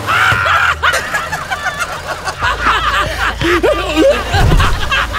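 Several voices snickering and chuckling, the human-sounding laughter given to the horses, over the low steady rumble of a car, which grows louder about two and a half seconds in.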